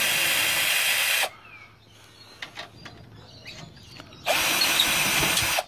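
Cordless drill-driver running twice, each time for about a second and a half, backing out the screws that hold a steel server's front grille panel. Light clicks and taps come between the two runs.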